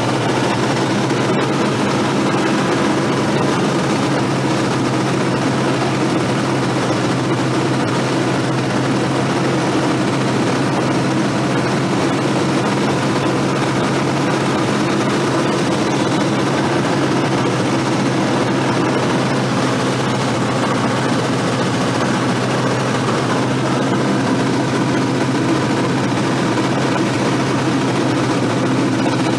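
Diesel engine and propeller of a Cessna 172 running steadily with an even drone and hum that do not change.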